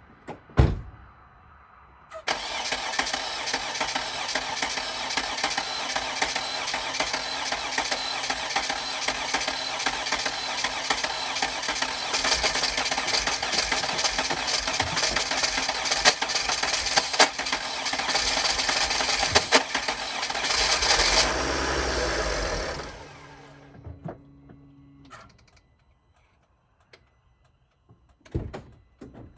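A thump, then the 2007 Freightliner Sprinter's freshly installed 3.0L V6 diesel is cranked and runs roughly for about twenty seconds, growing louder near the end before it cuts off. It is sputtering, the sign that the newly installed engine is not running right.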